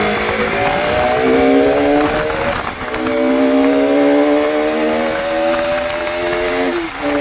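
Bajaj Pulsar RS200's single-cylinder engine pulling hard at high speed, its pitch climbing slowly, with a brief dip at a gear change about two and a half seconds in and another near the end.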